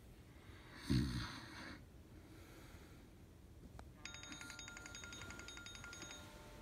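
A loud snoring breath about a second in, then a smartphone alarm ringing for about two seconds: a high chime pulsing rapidly.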